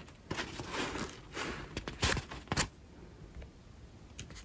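Diamond painting canvas and its protective release paper rustling and crinkling as they are handled, with a few sharp crackles about two to two and a half seconds in, then softer rustling.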